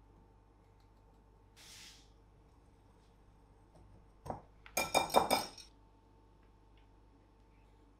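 Metal wire whisk clinking against the side of a glass mixing bowl while stirring dry flour: one knock, then a quick run of ringing clinks lasting under a second. Earlier, a brief soft hiss of sugar being tipped onto the flour.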